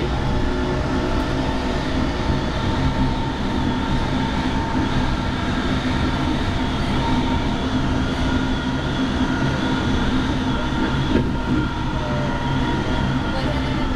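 Portland MAX light rail train running at speed, heard from inside the car: a steady rumble of wheels on the track with a constant motor hum.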